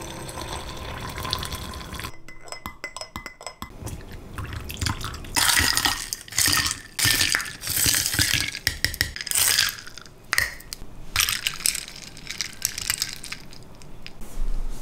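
Water splashing and running in a series of short bursts, loudest from about five to eleven seconds in, with light clinks of glass or dishes.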